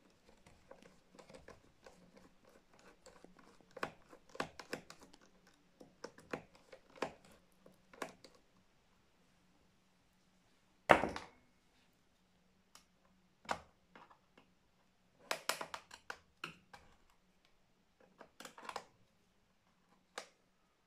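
Screwdriver working screws out of a laptop's plastic bottom case: scattered small clicks and scrapes with quiet gaps, and one sharp, louder knock about eleven seconds in.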